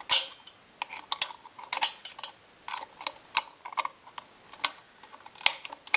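Irregular light metallic clicks and scrapes of a steel circlip being worked into its groove and turned into place on a Puch Maxi E50 moped clutch, where it holds the starter plate.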